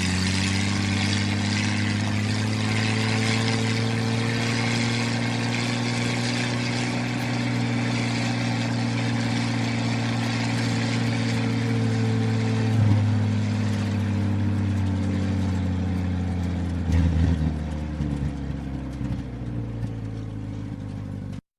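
Old Jeep's engine running while driving, its pitch holding fairly steady with slight rises and falls. There is a sharp knock about halfway through. Over the last few seconds the engine note drops lower and the sound turns uneven and bumpy, then it cuts off suddenly.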